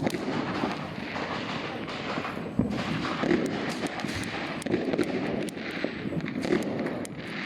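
Fireworks going off: a dense, continuous crackle of many small overlapping pops and bangs, with a couple of stronger bangs a little before the middle.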